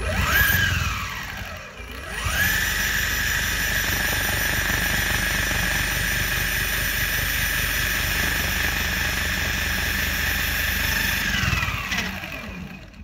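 DIY electric skateboard's belt-driven brushless motors spun up by the throttle with the wheels running free: a whine rises in pitch, drops briefly, then climbs again and holds steady for about nine seconds before winding down near the end. The board vibrates quite a bit as it runs.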